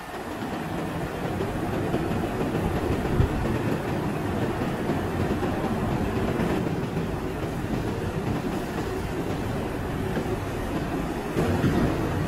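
Steady mechanical din of factory machinery, with a single short knock about three seconds in.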